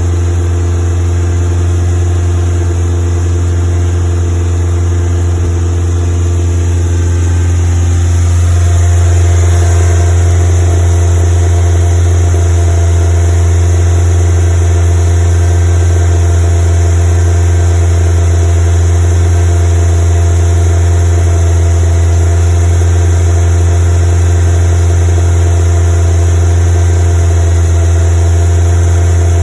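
Westfield FW engine running at fast idle with a misfire, which persists even with new ignition leads fitted; the engine speed rises slightly about eight seconds in and then holds steady.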